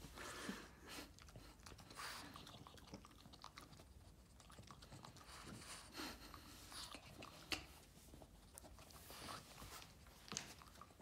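Boston terrier chewing a treat: faint, irregular crunching and mouth clicks.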